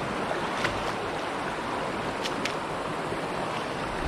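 Shallow creek running over a rocky riffle: a steady rush of moving water, with a few faint ticks about half a second in and again just past two seconds.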